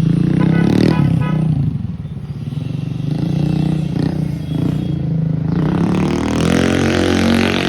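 TVS Ntorq 125 scooter's single-cylinder engine running through an aftermarket full-system exhaust: the note settles lower about two seconds in, then rises as the scooter is revved and pulls away near the end.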